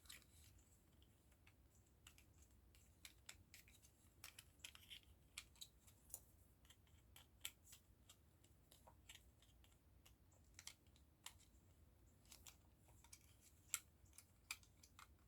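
Faint, irregular clicks and taps of small plastic model-kit parts being handled and fitted together.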